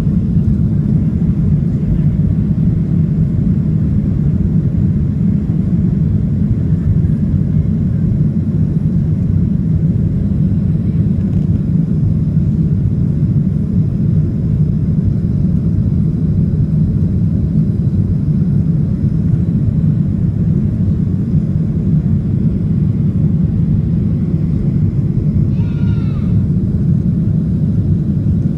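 Boeing 737 airliner's jet engines at takeoff power, heard from inside the cabin over the wing: a loud, steady, deep noise through the takeoff roll and climb-out. A brief high-pitched sound a couple of seconds before the end.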